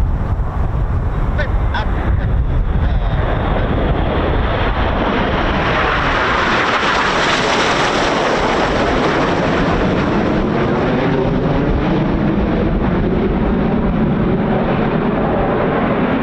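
Red Arrows BAE Hawk T1 jets flying by, their jet noise swelling to a peak about halfway through and then slowly fading. Wind rumbles on the microphone at the start.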